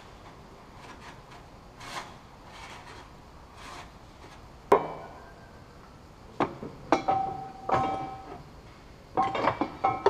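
Light scraping of the thin metal exhaust heat shield being bent by hand. Then a sharp metallic clank, followed by a run of clanks and knocks with brief ringing as the steel tow bar is lifted against the car's chassis brackets.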